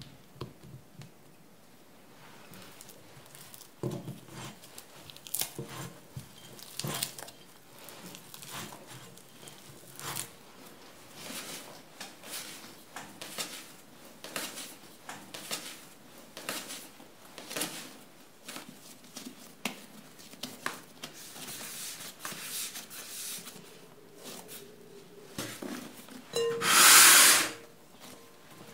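Hands kneading sweet pumpkin bread dough and working cubes of butter into it, with irregular soft slaps and squishes of the dough against the work surface. A brief, louder rustling noise comes near the end.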